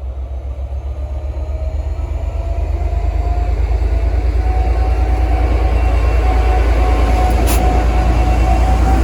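V/Line N class diesel-electric locomotive's EMD two-stroke V12 engine running under power, a deep throbbing rumble that grows steadily louder, with a faint whine slowly rising in pitch.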